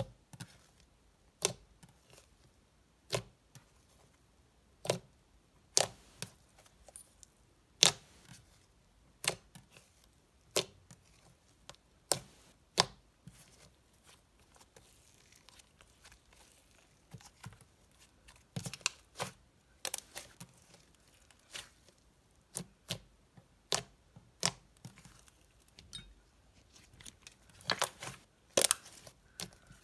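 Thick, glossy butter slime made with Model Magic being poked and pressed by hand, giving sharp, irregular clicks and pops about every second or two, more crowded near the end.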